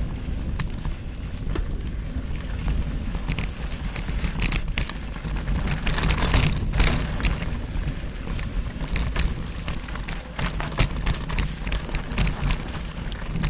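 Mountain bike riding over a dry, rocky dirt trail: tyres crunching on loose gravel and the bike rattling, with frequent sharp knocks as it hits rocks, busiest about six seconds in. A low wind rumble on the microphone runs underneath.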